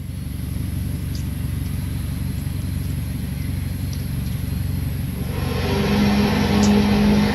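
The unexplained 'trumpet sound in the sky' recorded in Hawaii: a low, steady rumbling drone. About five seconds in it swells into a louder held, horn-like tone that sounds almost like a shofar.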